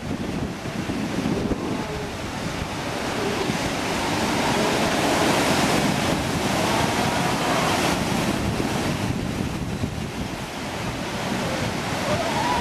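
Surf washing on a rocky shore with wind buffeting the microphone, swelling louder in the middle. Faint calls from the penguin and seabird colony come through a few times.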